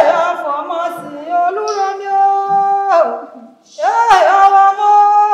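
Women singing unaccompanied in long held notes that slide down at the ends of phrases, with a short break about three seconds in.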